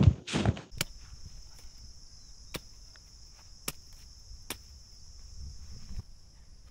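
A couple of heavy footsteps on grass at the very start, then a steady high insect buzz with four sharp knife strikes spread over the next few seconds.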